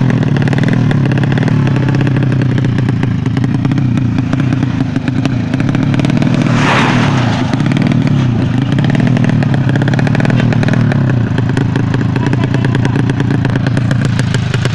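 Motorcycle engine running loudly at fairly steady revs, with a brief harsh burst of noise about seven seconds in.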